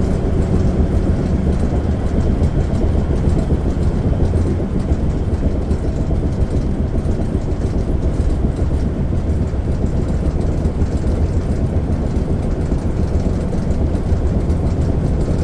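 Class A motorhome on a Ford F53 chassis driving steadily down the road: a continuous low drone of engine and road noise, with no distinct events.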